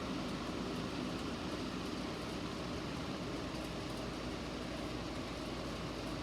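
Steady rushing background noise, like a fan or air handler, with no alarm tone or voice message sounding.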